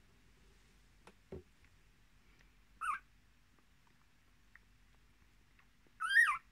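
Miniature Australian Shepherd puppies squeaking: a short high-pitched squeak about three seconds in, and a louder, slightly longer one near the end. A soft low thump comes about a second in.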